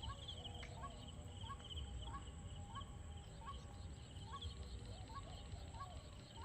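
Rural evening ambience at a riverside: a small animal gives a short rising call about every two-thirds of a second, over a steady pulsing insect trill.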